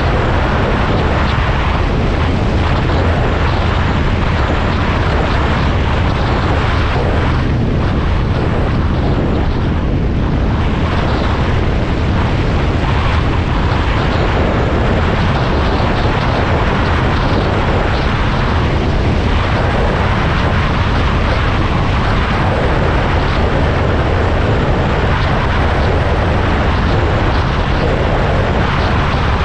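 A motor vehicle's engine running steadily with a constant loud drone and low rumble, mixed with noise from the ride itself.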